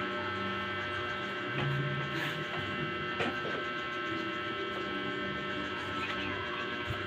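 Steady electrical hum, with a few faint clicks.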